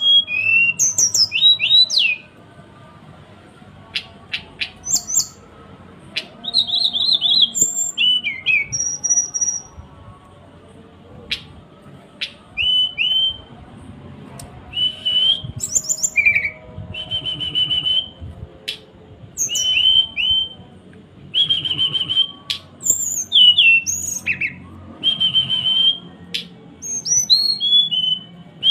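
Sulingan songbird calling in its 'cekrekan' style: bursts of short clear whistles, quick falling slurred notes and sharp clicking notes, broken by short pauses.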